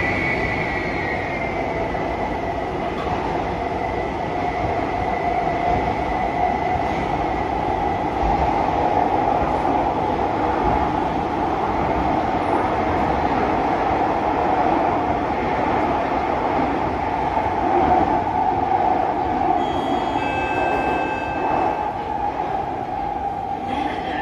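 Inside an SMRT Kawasaki–CRRC Sifang C151B metro train in motion: a steady rumble of the wheels and running gear. A thin whine near the start fades out within the first couple of seconds, and a few brief high tones sound near the end.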